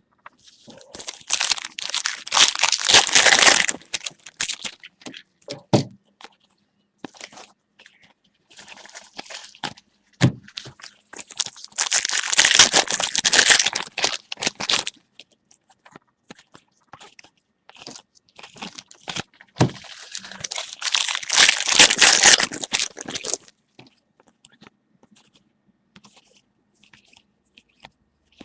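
Foil trading-card packs of Prizm football being torn open and their wrappers crinkled, in three noisy stretches of a few seconds each. Scattered clicks of cards being handled fall between them.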